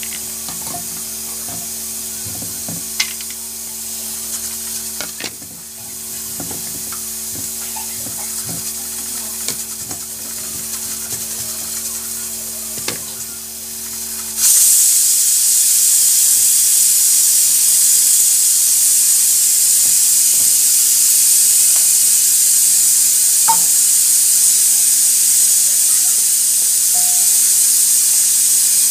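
Pressure cooker of chickpeas on a gas stove hissing steam: light clicks and clinks of a steel bowl and plate over a low steady hum, then about halfway in a loud, steady, high-pitched steam hiss starts suddenly and runs on.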